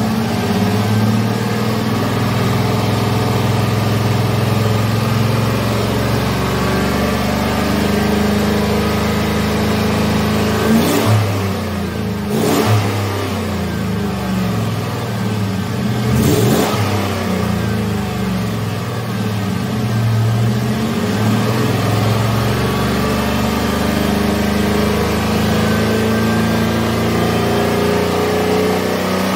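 Chevrolet Avalanche's 5.3-litre V8 running steadily with the automatic transmission in gear, heard from underneath during a check for transmission noise after a flush with commercial fluid. A few brief louder noises come in around the middle.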